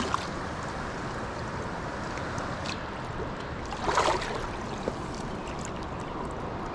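Steady rush of river water flowing, with a brief louder rush of water about four seconds in.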